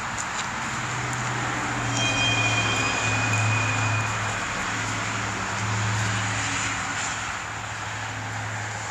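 Distant engine drone that swells twice, about two seconds in and again near six seconds, then eases off, over a steady background hiss.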